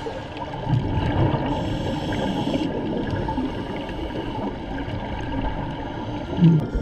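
Scuba diver's exhaled bubbles gurgling underwater in irregular bursts, with a louder low gurgle near the end.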